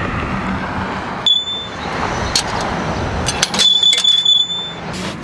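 Coin-operated car-wash shampoo and vacuum machine being fed coins: a few sharp clicks and two electronic beeps, a short one about a second in and a longer one lasting about a second near the four-second mark. A steady hum and background noise run underneath.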